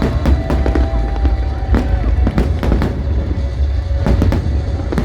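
Aerial fireworks exploding in quick succession, sharp bangs and crackles over a deep rumbling boom, with music playing underneath.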